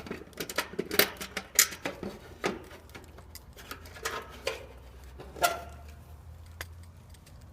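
Scattered clicks and light metallic clinks of hand tools and parts being handled while an air conditioner's dual run capacitor is taken out, over a faint low steady hum.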